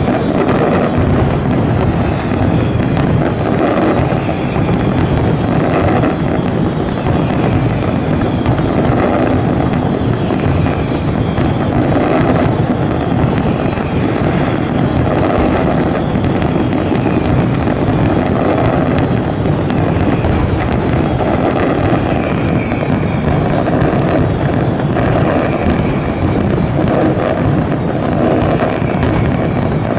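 Dense fireworks barrage: aerial shells bursting one after another in a continuous rumble, shot through with many sharp cracks and crackles.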